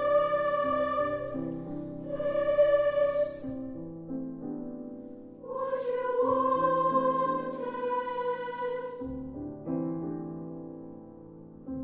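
A song with piano accompaniment: long held sung notes, twice in the first few seconds and one longer phrase in the middle, over a piano part that keeps moving beneath.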